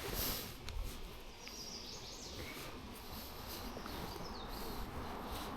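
A small songbird calling: a few quick high chirps and short sliding notes, heard over a steady low rumbling noise, with a brief rustle at the very start.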